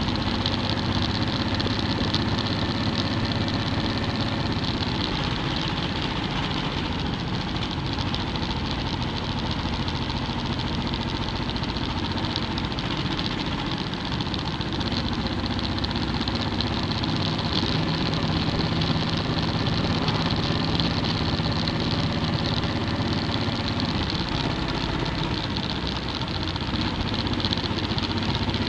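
Motorcycle engine running steadily at cruising speed, mixed with wind and road noise.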